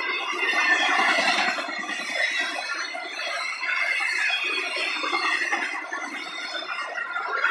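Steel wheels of intermodal freight cars rolling past on the rails, squealing in several high, wavering tones over the rolling noise of the trucks. The squeal swells about a second in and again near the end.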